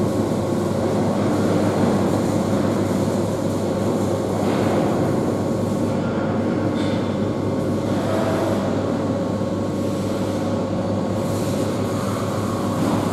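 Diesel engine and hydraulics of a JCB wheeled excavator working under load as it digs soil with its bucket and lifts it: a steady, loud engine drone with a constant hum.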